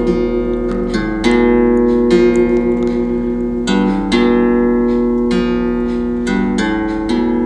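Background music: an acoustic guitar piece of plucked chords, with a new chord sounding about once a second.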